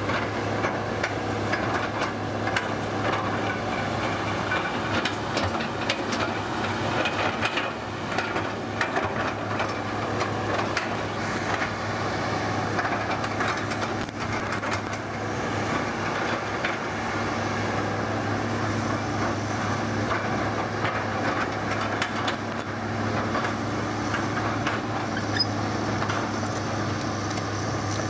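Hitachi Zaxis crawler excavator's diesel engine running steadily at working revs, with repeated metallic clanks and knocks from the steel tracks and bucket as it digs and travels.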